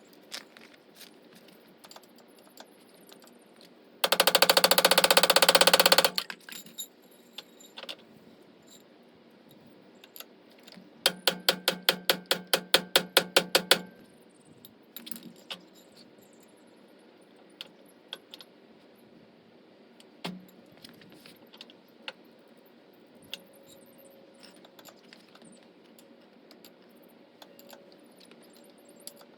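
Impact wrench hammering in two bursts on the car's suspension or brake bolts: a dense, loud burst of about two seconds about four seconds in, and a slower, pulsing burst of about three seconds from about eleven seconds. In between, tools and metal parts clink and tick.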